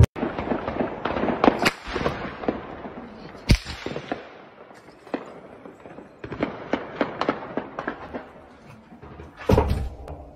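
Gunfire in a city street at night: a long, irregular string of sharp cracks and bangs. It is dense at first, has one loud bang about three and a half seconds in, thins out, picks up again in quick runs, and ends with a loud cluster near the end.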